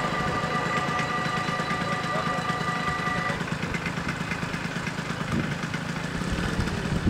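Level-crossing warning bells ringing steadily as the half-barriers rise, cutting off about three seconds in once the barriers are up. Underneath, a scooter engine idles with a steady low hum.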